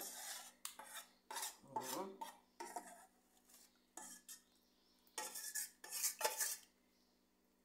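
Metal utensil clinking and scraping against a bowl while mixing, in a run of short irregular bursts that stop near the end.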